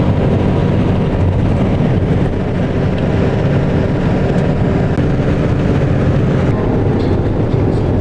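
Steady rumble of tyre, road and engine noise inside a vehicle's cabin travelling at highway speed.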